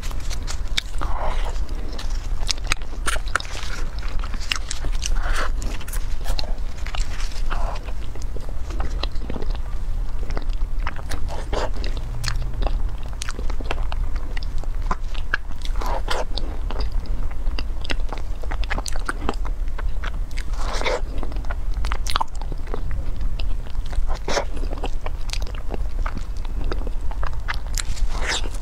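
Close-miked eating: a plastic wrapper crinkles as a square chocolate cake is unwrapped, then many bites, chewing and wet mouth clicks as the cake is eaten, over a steady low hum.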